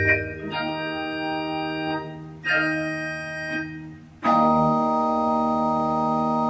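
Two-manual church organ playing slow, sustained chords: a new chord enters about half a second in, another near two and a half seconds, and a fuller, louder chord about four seconds in that is held.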